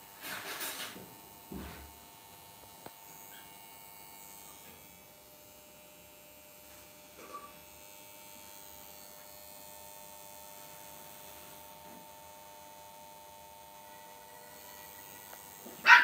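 Steady electrical mains hum, with a brief rustle near the start and a soft thump shortly after. Right at the end a Lhasa Apso puppy gives a sharp yelp while the puppies play-fight.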